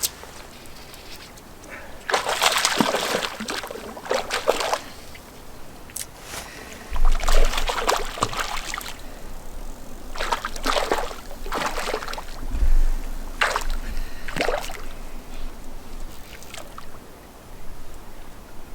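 Water splashing in several short, separate bursts, with a couple of low rumbles between them.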